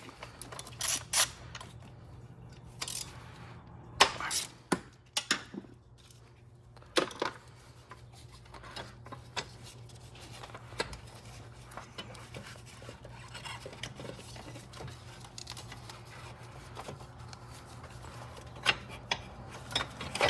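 Metal hand tools and loose bolts clinking and knocking in a scatter of sharp clicks, densest in the first seven seconds, as the 12 mm bolts of a Subaru high-pressure fuel pump cover are taken out. A faint steady low hum lies underneath.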